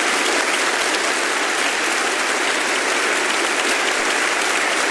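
Large audience applauding steadily, a dense, even sound of many hands clapping.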